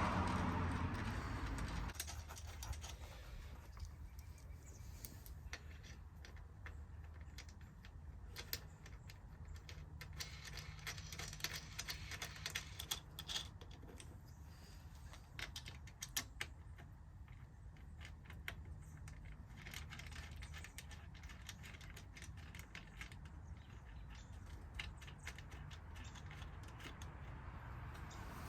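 Scattered, irregular metal clicks and clinks of hand tools working on truck door hinge bolts, over a low steady hum. A louder noise fades out about two seconds in.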